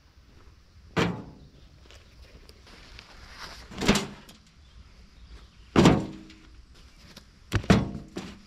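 A series of heavy knocks, five in all and spaced a second or two apart, the last two in quick succession. Some are followed by a short ringing tone.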